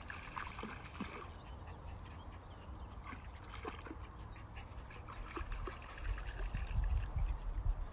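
Shallow stream water trickling and lapping as a pug wades and splashes through it, with faint scattered clicks. A louder low rumble comes in for the last two seconds.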